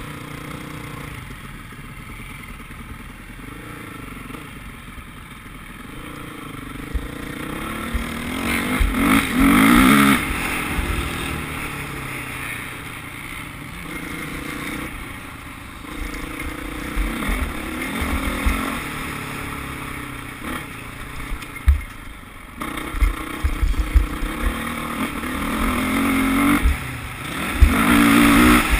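Dirt bike engine heard close from an onboard camera, revving up and down as the rider works the throttle, loudest about a third of the way in and again near the end. Sharp knocks from bumps on the track come through in the second half, over a steady rush of wind noise.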